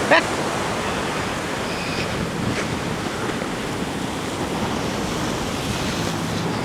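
Heavy ocean surf breaking and washing over lava rocks, a steady rush of water, with wind on the microphone.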